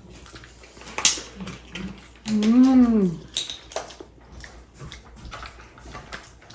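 Mealtime eating sounds: a sharp click about a second in, with smaller clicks and smacks around it. About two seconds in comes a short voiced sound that rises and then falls in pitch.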